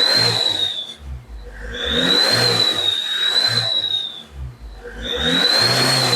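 Fake turbo whistle tip on a Mahindra Scorpio's exhaust whistling as the engine is revved three times: each throttle blip brings a high whistle that swells and fades with the revs over the engine and exhaust noise.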